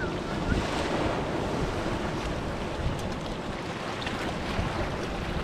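Sea waves washing in and surging through a rocky tide-pool channel, a steady rushing wash with wind rumbling on the microphone.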